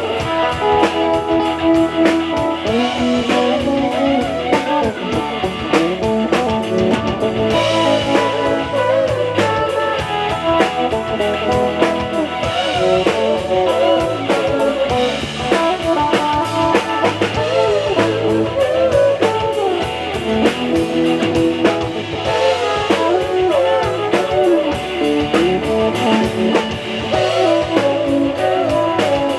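Rock music with guitar over a steady drum beat, playing throughout.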